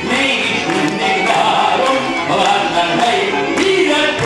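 A Hungarian Gypsy band of violins and double bass plays a nóta, with a male voice singing along.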